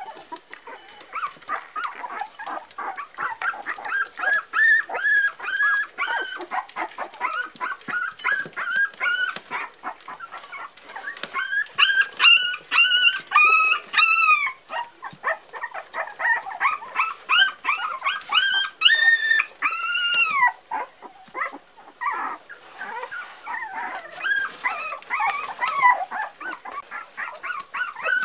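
Four-week-old Parson Russell Terrier puppies whimpering and whining: a rapid string of short, high, rising-and-falling calls, with louder, longer whines around twelve to fourteen seconds in and again about nineteen seconds in.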